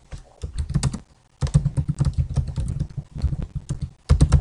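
Typing on a computer keyboard: runs of quick keystroke clicks, with a short pause about a second in and another near the end.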